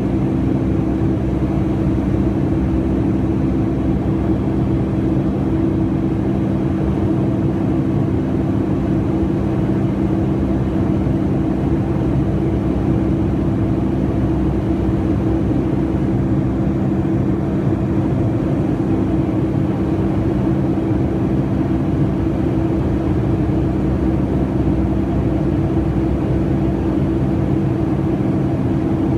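Steady cabin noise inside a Boeing 757-200 after takeoff: a constant engine drone with several steady low hums over an even rush of airflow.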